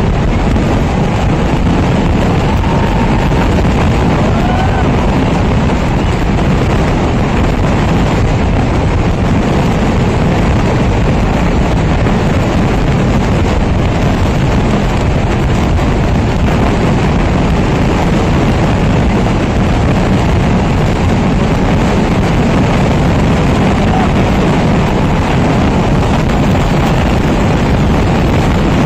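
A dense, unbroken barrage of firework explosions, so many blasts so fast that they merge into one loud, steady rumble.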